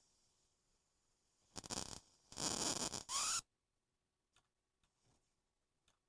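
Homemade high-voltage ion ray gun crackling and hissing in two short bursts as it is switched on. The second, longer burst ends in a brief rising whine and cuts off suddenly, followed by a few faint ticks.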